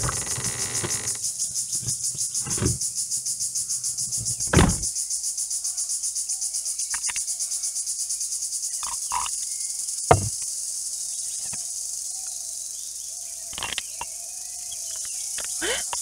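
A high-pitched insect chorus trilling steadily with a rapid, even pulsing, with a few sharp knocks and clinks scattered through it. Music fades out in the first second.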